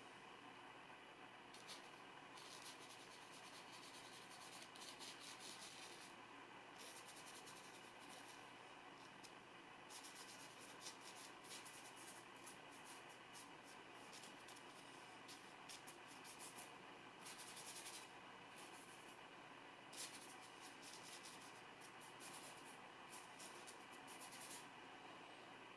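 Faint scratchy strokes of a long-bristled hog-hair flat brush scrubbing oil paint onto oil-painting paper, in runs of quick strokes with short pauses between.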